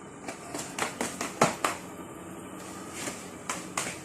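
Scattered light clicks and taps, about ten of them at irregular spacing, the sharpest about a second and a half in.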